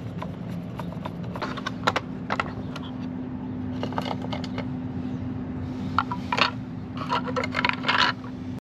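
Taillight parts and hand tools being handled during fitting: scattered clicks, knocks and short scrapes over a steady low hum. The sound cuts off abruptly near the end.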